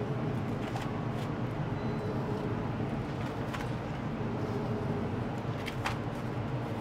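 Steady background hum of a snack-shop kitchen, with a few light clicks and taps as crisp toasted sandwich triangles are handled and set down on a paper-lined tray.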